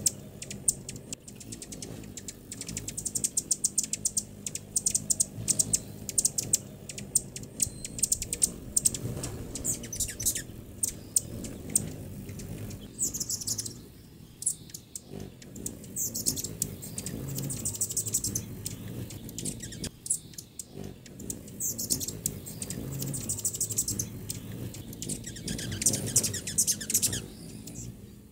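Hummingbirds chipping and twittering: rapid strings of sharp, high ticks in the first half, then scattered squeaky chirps in short clusters.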